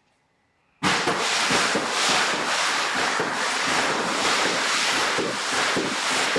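A firework going off: after near silence, a loud steady hiss full of fine crackling starts suddenly about a second in and keeps going.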